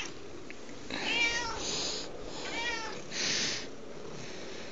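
Domestic cat meowing twice, short arching meows about a second and a half apart.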